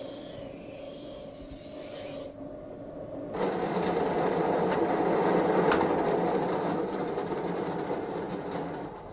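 A steel knife blank held against a turning grinding wheel, a rasping hiss over a faint hum that stops a little over two seconds in. About a second later comes the louder, steady rush of the charcoal forge fire burning, with a couple of sharp crackles.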